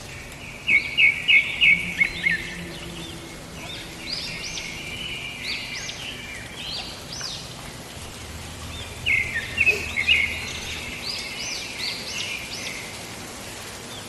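Birds calling: many short chirps that rise and fall in pitch, with two loud bursts of rapid chirping, about a second in and again around nine seconds in, over a steady background hiss.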